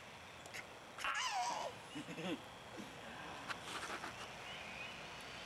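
A baby gives a high-pitched squeal that falls in pitch about a second in, followed by a short, lower voiced sound.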